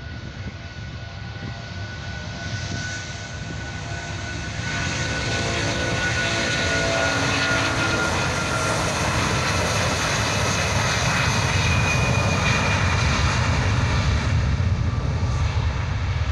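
Airbus A330-300's two Rolls-Royce Trent 772 turbofans at takeoff power as the airliner accelerates down the runway. It grows steadily louder: a steady high whine in the first half gives way to a deep, dense growl that holds to the end.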